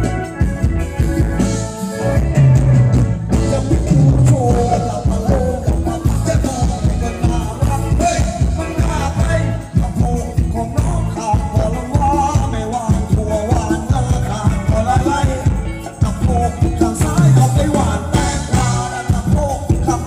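Live Thai ramwong band music played loud, with a steady driving dance beat under a wavering melody line.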